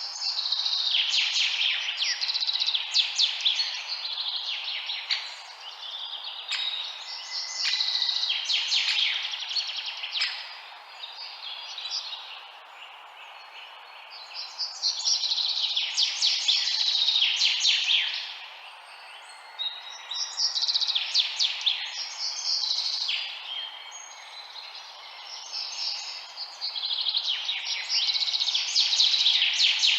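Songbirds singing in repeated phrases of rapid, high chirps, each phrase lasting a few seconds with short gaps between, over a steady low background hiss.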